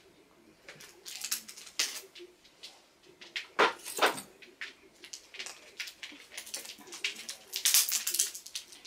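Plastic battery packaging being pried and torn open by hand: scattered crackles and clicks, with two loud sharp sounds about half a second apart in the middle and a denser burst of crackling near the end.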